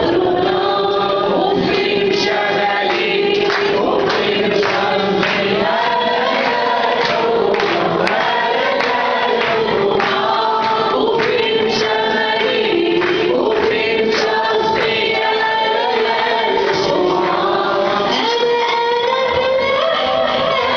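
A woman singing into a microphone with a roomful of voices singing along in unison.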